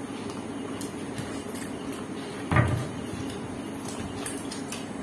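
A single dull thud about halfway through, over a steady low background hum.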